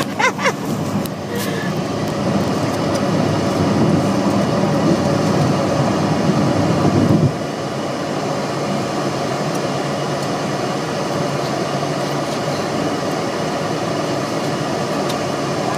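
Steady road and engine noise inside the cabin of a car driving at highway speed. A louder low rumble drops off suddenly about seven seconds in, leaving a quieter steady drone.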